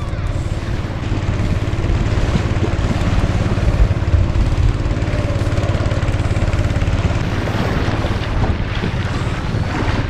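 A small boat's engine running steadily under way, with a rush of wind and water over it.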